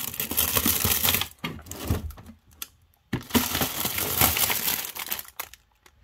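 Plastic food packaging crinkling and rustling as frozen packets are handled and shifted in a freezer drawer, in two stretches with a short pause around the middle.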